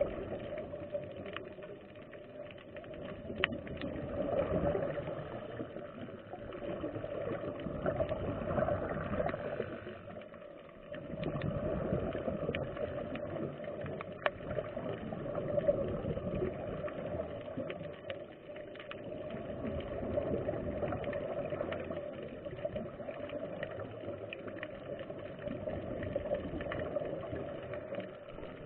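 Muffled underwater sound of scuba breathing through a regulator, with exhaled bubbles gurgling up in surges that swell and fade every few seconds. A few sharp clicks come through.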